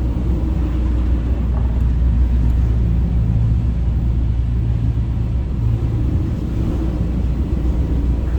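Steady low rumble and hum of a ship under way in strong wind, the engine's drone and the wind blending into one continuous noise.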